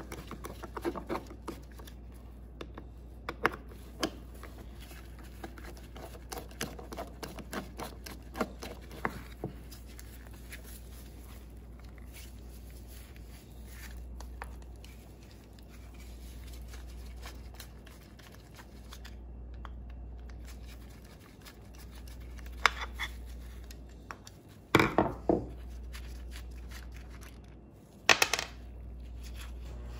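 Screwdriver scraping and clicking as it turns out the small screws of an old mechanical fuel pump, then the metal pump parts being handled, with a few louder clicks and knocks near the end. A low steady hum lies underneath.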